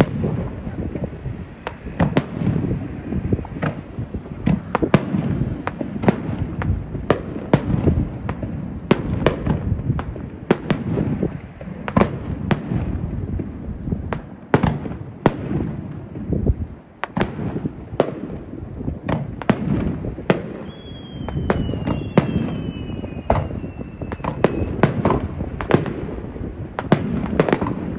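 Aerial fireworks shells bursting in quick succession: a continuous barrage of booms and crackles, several a second, with a faint high whistle between about 21 and 25 seconds in.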